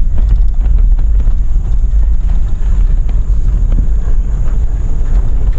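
Four-wheel-drive truck driving over rough off-road ground, heard from inside the cab: a loud, steady low rumble with a few small knocks.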